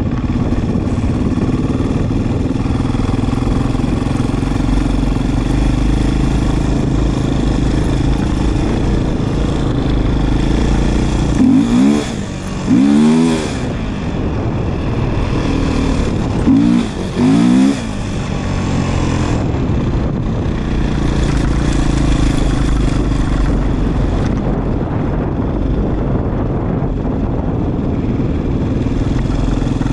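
Beta 500 RR single-cylinder four-stroke dirt bike engine running steadily while riding, with two short bursts of revving, about twelve seconds in and again about five seconds later, where the pitch sweeps up and down.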